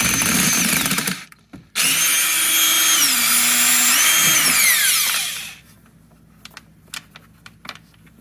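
Cordless power drill/driver backing out the air box's machine screws: a short run of about a second, then a longer spin of several seconds whose pitch dips in the middle and falls as the motor winds down. Faint small clicks follow.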